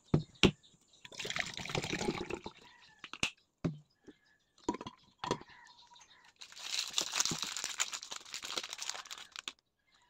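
Green juice poured from a plastic pitcher into a plastic tumbler, with sharp clicks of the tumbler, lid and straw being handled. Then a stretch of crinkling as a paper snack wrapper is opened.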